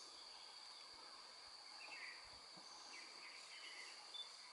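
Near silence: a faint, steady, high insect drone from crickets or cicadas in the forest, with a few faint chirps.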